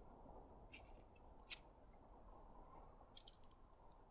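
Near silence with three faint groups of clicks and scrapes from a wooden skewer pressing indents into soft craft dough on a paper-covered table.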